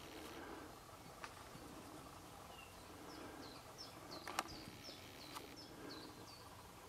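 A bird calling in the background: a run of short, high, down-slurred notes, about two a second, through the second half. A few sharp clicks stand out over faint background noise, the loudest a little past halfway.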